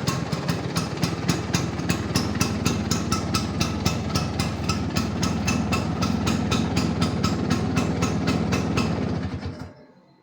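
Vespa Sprint's two-stroke single-cylinder scooter engine idling after a rebuild, running evenly with a regular pulse of about four to five beats a second, then shut off near the end.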